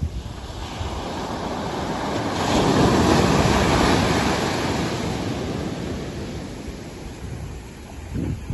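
Ocean surf breaking on a sandy beach: a wave crashes about two and a half seconds in, the loudest point, and its wash fades away over the following few seconds.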